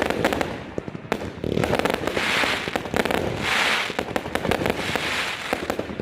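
Fireworks going off: a dense run of rapid crackling pops, with three swells of hiss in the middle and later part.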